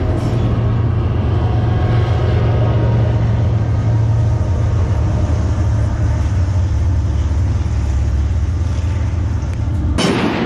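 BNSF diesel freight locomotives passing close beneath, a steady low engine rumble over the noise of the rolling train. About ten seconds in the sound changes abruptly to a brighter, hissier rush of passing cars.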